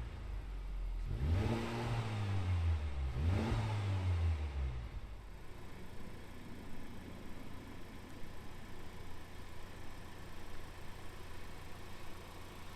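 2019 Honda Civic Type R's 2.0-litre turbocharged four-cylinder revved twice in quick blips, each climbing and falling back, then settling to a steady idle.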